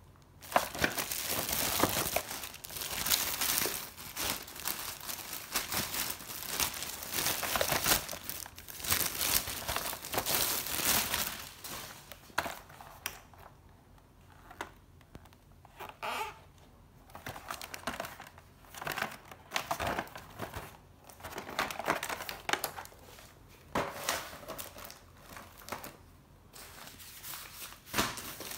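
Plastic packaging crinkling and rustling as a clear plastic mailing bag is handled and opened, dense for about the first twelve seconds, then in shorter separate bursts.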